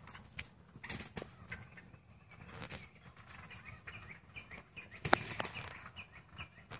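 Wild turkey jakes fighting, their wings beating in scattered sharp slaps, the loudest a pair about five seconds in, with a faint run of short high notes between.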